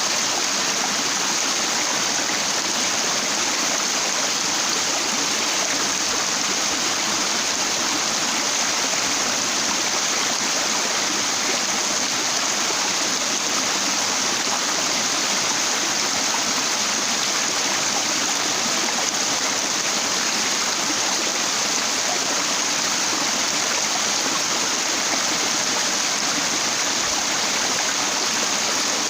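Stream water rushing steadily over rocks, an even, unbroken wash of water noise.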